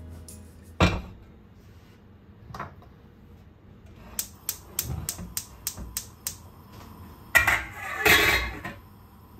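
A stainless steel pot knocks down onto a gas hob's grate, then the hob's spark igniter clicks rapidly, about three or four clicks a second, as the burner is lit. A metal lid then clanks and rattles onto the pot.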